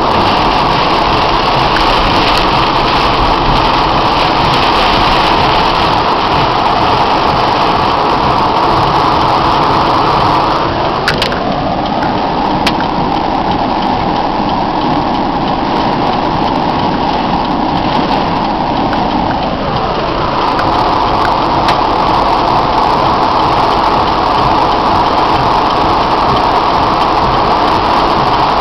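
Heavy rain pelting a car's roof and windshield, heard from inside the car, mixed with the car's engine and tyres on the flooded road.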